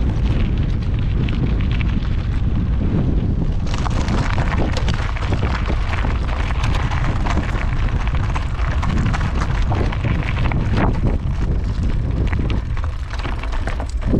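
Wind buffeting the microphone of a camera on a moving bicycle, a loud continuous rumble, mixed with the crunch and crackle of tyres rolling over a gravel track. The gravel crackle grows louder about four seconds in.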